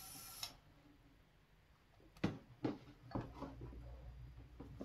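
Compressed air hissing from a hose-fed tire inflator into a dirt bike tire, cut off about half a second in. It is followed by a few sharp clicks and knocks, the loudest about two seconds in, from handling the wheel and inflator.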